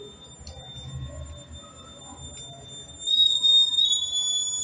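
Electronic buzzer of a homemade MQ135 air-pollution detector sounding a loud, high-pitched steady tone that starts suddenly about three seconds in. It is the alarm that goes off when the sensor reads pollution above 160 ppm.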